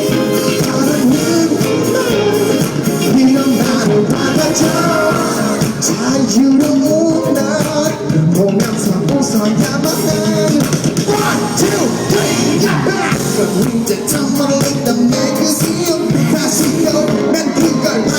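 Live pop music with a male vocal singing over a loud, steady band track.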